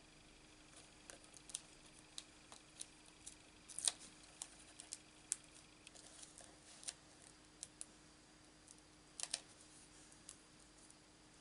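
Faint, irregular clicks and ticks of paper being handled: small die-cut cardstock pieces picked apart and pushed out of a die-cut anchor by fingers on a craft mat. The sharpest clicks come about four seconds in and again about nine seconds in.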